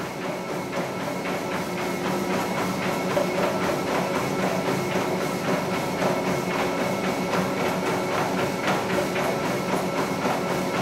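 Motorised treadmill running with a steady whine while a Labradoodle's paws pad on the moving belt in a quick, even rhythm.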